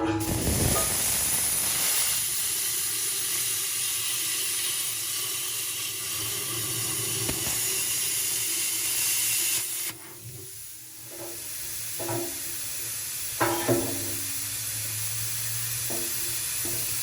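Plasma cutter cutting steel: a steady, loud hiss of the arc and its air that cuts off sharply about ten seconds in, followed by a fainter hiss and a few brief sounds.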